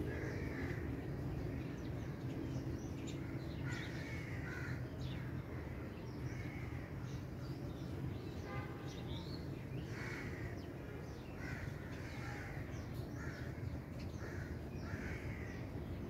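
Crows cawing again and again, with smaller birds chirping and a steady low background hum.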